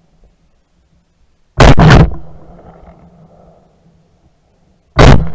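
Hunting gun firing at a wild boar: two shots in quick succession about a second and a half in, then another shot near the end, each very loud and trailing off in echo.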